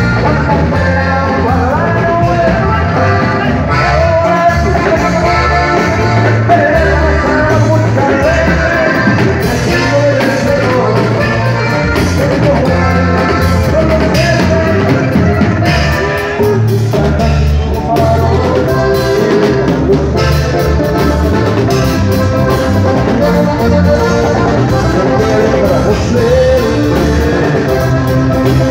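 Norteño band playing live and loud: accordion, guitar and drum kit over a steady beat, with a man singing.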